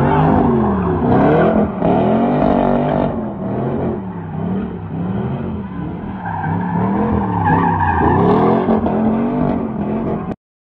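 Pontiac G8 sedan doing donuts: the engine revs up and down about once a second while the rear tyres squeal and skid on the asphalt.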